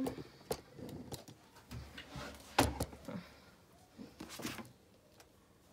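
Shrink-wrapped paperback books being handled and shifted on a shelf: light clicks and short rustles, with one sharper knock about two and a half seconds in.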